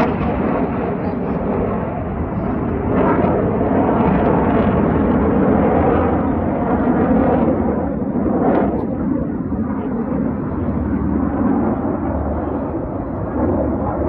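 Jet noise from the Black Eagles' T-50B jets flying a smoke-trailing formation overhead: a loud, steady rumble that eases slightly in the second half as they draw away.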